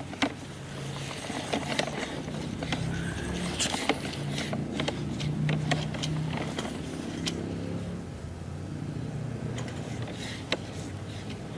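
Sewer inspection camera being pushed down a main sewer line: scattered sharp clicks and knocks from the push rod and camera head, over a steady low hum.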